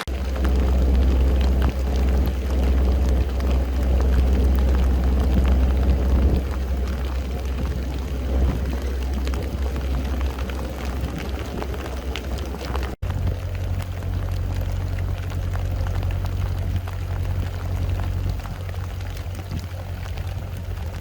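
Heavy thunderstorm rain pouring down in a dense, steady hiss, with a steady low drone underneath. The sound changes abruptly with a momentary dropout about two-thirds of the way through, after which the drone is lighter.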